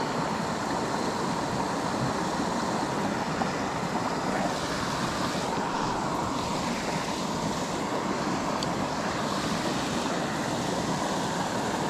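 Steady rushing of a small creek riffle spilling over rocks, its hiss dipping briefly about halfway through.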